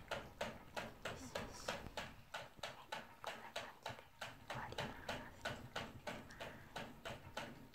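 Dog licking at a cage-mounted water bottle's drinking nozzle, a quick regular clicking of about four licks a second.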